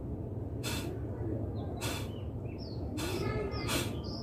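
Kapalbhati breathing: short, forceful exhalations pushed out through the nose, about one stroke a second, each a brief sharp hiss. Birds chirp faintly between the strokes.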